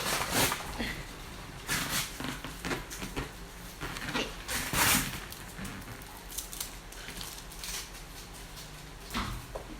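Tape being peeled and pulled off a cardboard shipping box, with irregular bursts of rustling and scraping.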